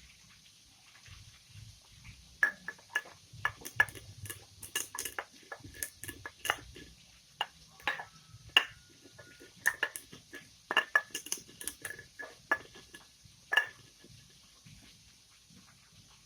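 Kitchen utensils clinking and tapping against cookware in irregular sharp knocks, many with a brief metallic ring, plus a short steady tone about eight seconds in.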